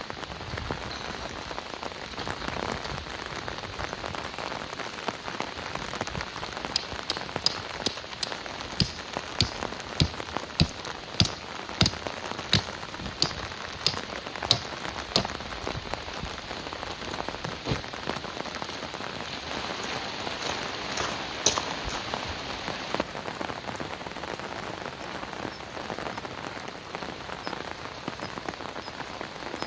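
Steady heavy rain falling, with sharp, loud drips striking a surface at an even pace of under two a second through the middle stretch, then only now and then.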